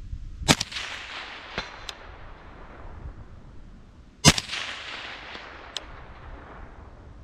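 Two rifle shots from a Knights Armament M110 SASS semi-automatic .308 rifle, nearly four seconds apart, each followed by a long echo dying away. A fainter sharp crack comes about a second after each shot.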